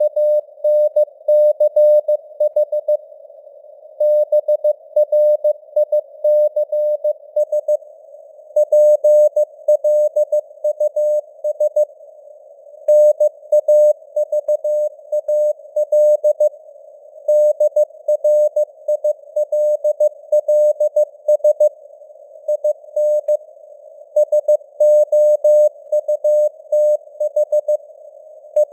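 Computer-generated Morse code (CW) at 15 words per minute: a single steady tone keyed on and off in dots and dashes, with short gaps between characters and words. It sits in a narrow band of simulated radio-receiver hiss and rises and falls a little in strength, like fading on the air (QSB).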